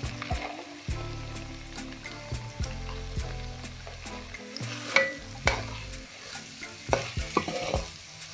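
Chopped onions sizzling in hot oil in a kadai, stirred with a perforated metal spatula that knocks and scrapes against the pan several times in the second half.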